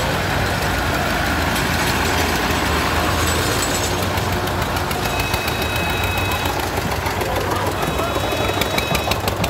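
Farm tractor diesel engines running as tractors drive slowly past one after another. From about four seconds in, a small vintage tractor's engine clatters with a rapid, even knock.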